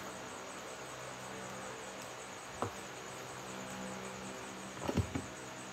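Eating sounds over a steady low hum: fried chicken being pulled apart by hand and eaten. One short click comes about two and a half seconds in, and a quick cluster of sharper clicks near the end.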